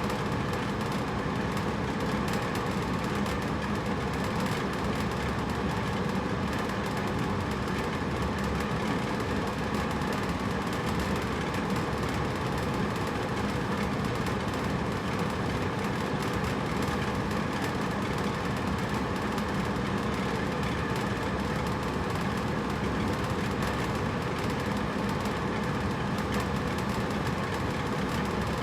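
Hotel room air conditioner running steadily: a constant rush of air with a low hum beneath, unchanging throughout.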